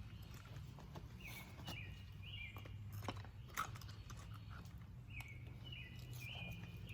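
A bird singing two short phrases of quick, sliding chirps, about a second in and again near the end. Scattered light clicks and knocks sound over a low steady hum, with one sharper knock past the middle.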